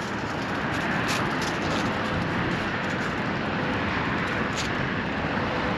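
Steady outdoor background noise of a parking lot, a constant even rush like distant traffic, with a few faint ticks and no clear machine starting or stopping.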